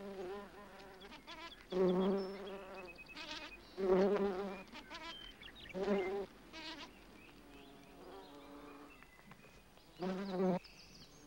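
Bumblebee buzzing at a flower in several short, loud bursts of about half a second each, with a softer hum between them. This is buzz pollination: the bee vibrates the anthers to shake out the pollen.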